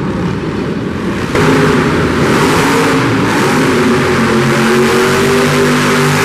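Small youth ATV engines buzzing on a dirt arena track; about a second in the sound jumps louder to the Megalodon monster truck's engine running close up, a steady heavy engine note.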